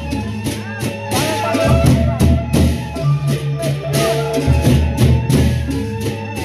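Gendang beleq ensemble playing: large double-headed barrel drums beaten with hand and stick, pairs of hand cymbals clashing a few times a second, and held metallic pitched tones under them.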